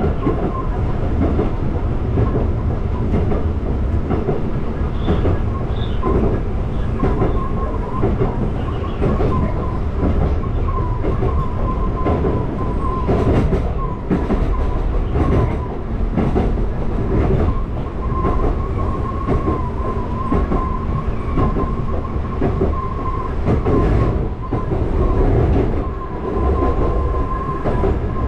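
Konan Railway Konan Line electric train running along the track, heard from inside the car: a steady rumble with scattered clicks from the rail joints and a thin, wavering whine that holds near one pitch.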